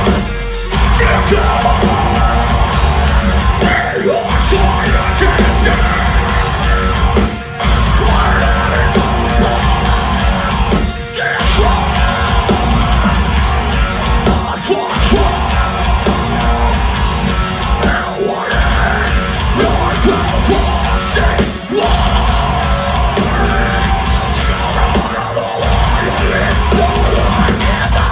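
Heavy metal band playing live: loud distorted electric guitars and drums over a heavy low end, with the whole band cutting out for an instant every three to four seconds in a stop-start riff.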